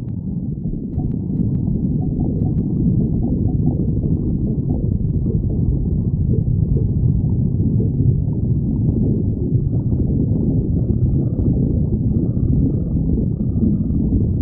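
A person's stomach growling: a continuous low rumble with no pauses, with a few faint clicks in the first few seconds.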